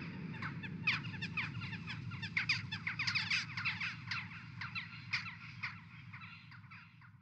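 Many birds calling in quick, dense succession, fading out over the last couple of seconds.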